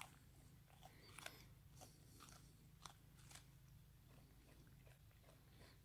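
Faint, irregular crunching of a wallaby biting and chewing kernels off a cob of sweet corn held in a hand.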